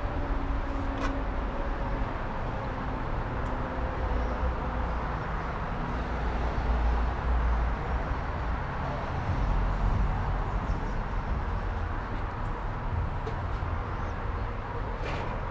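Steady outdoor background rumble, heaviest in the low end and swelling and easing slowly, with a couple of faint ticks.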